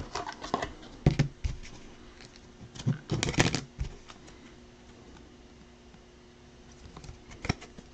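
Clear plastic card sleeve and rigid top loader handled as a trading card is slid into them: scattered light clicks and plastic rustles, with a denser cluster about three seconds in and a few more near the end.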